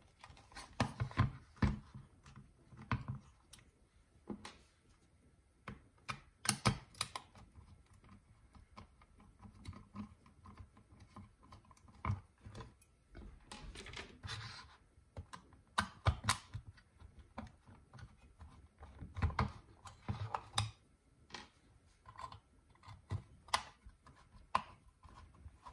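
Star-head (Torx) screws being undone from a plastic power-tool battery case with a folding star-key set: irregular small clicks and short scrapes as the key turns in the screw heads and the case is handled.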